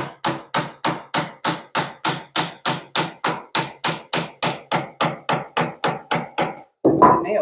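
Small 9-ounce claw hammer tapping rapidly and evenly on the end of a putty knife's handle, about five taps a second, driving the thin blade in to pop an old glued-on repair free of a carved wood cornice. The tapping stops near the end and a brief louder clatter follows.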